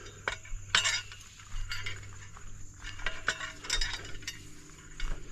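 Irregular light clicks and metallic clinks, as of gear being handled, over a steady low hum.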